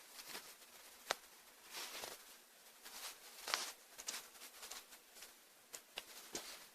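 Faint handling noises at a workbench: a few light clicks and taps, the sharpest about a second in, with short scraping rustles in between.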